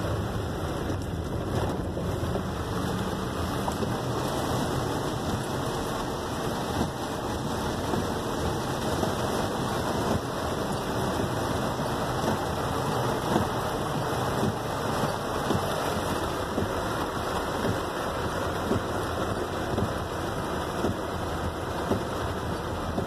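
Heavy rain falling on a car's roof and windows, heard from inside the car as it drives, as a steady dense patter with road noise beneath.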